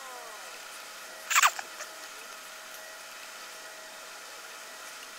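O-rings being stretched by hand over the steel swivel-joint manifold into their grooves, with one short, sharp sound falling in pitch about a second and a half in and a couple of faint ticks after it.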